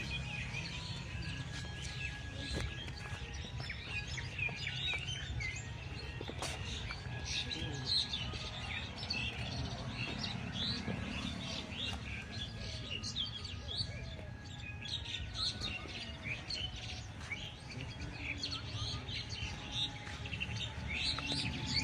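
A dense chorus of many birds chirping and calling, with short rapid chirps overlapping throughout over a low, steady background rumble.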